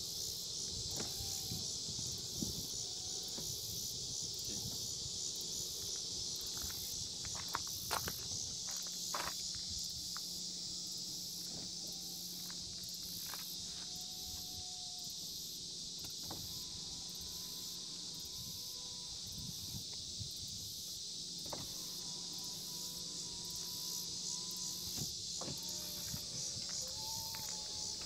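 Insects chirping steadily in a continuous high chorus, with a low steady hum starting about eight seconds in and a few sharp clicks.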